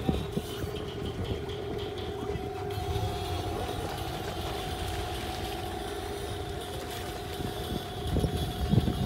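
A boat's engine idling steadily, a low rumble with a constant hum over it.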